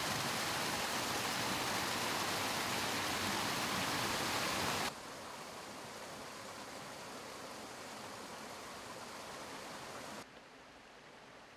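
Steady rushing of flowing water, dropping suddenly to a lower level about five seconds in and again near the end.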